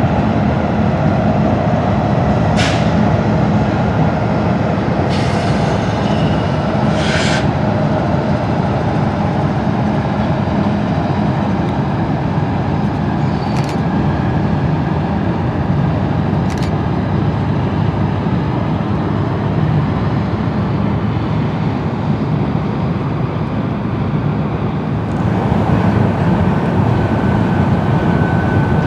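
Train rolling past: a steady loud rumble of wheels and railcars, with a few brief sharp squeaks or hisses about 3, 5 to 7, 14 and 17 seconds in. It grows brighter near the end, with a thin steady squeal.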